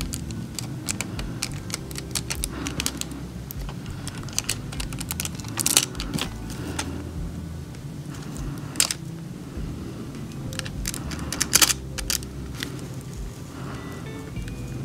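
Irregular light clicking and crinkling as a piece of nail transfer foil is handled and rubbed onto a plastic nail tip with a nail tool, with three sharper clicks spread through.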